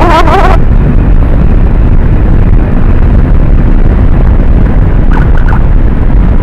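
Wind buffeting the microphone of a camera on a motorcycle ridden at speed: a loud, even low rumble.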